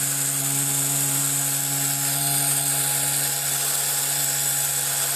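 Four small drone motors driving a shared shaft and spinning a helicopter propeller at a steady speed: an even, high-pitched motor whine with a steady hum underneath.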